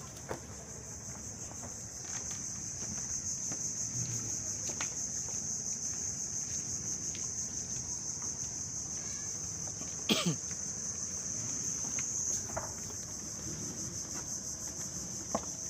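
Insects droning with a steady high-pitched buzz, with one sharp knock about ten seconds in.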